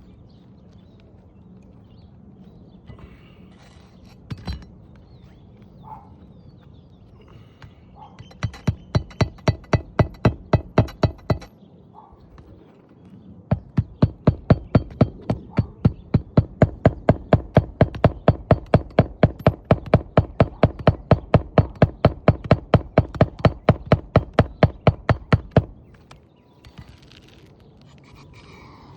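A hammer striking metal in rapid, even blows, about four a second. A short run of blows comes first, then after a brief pause a longer run of about twelve seconds, as an asphalt-shingle roof repair is carried out.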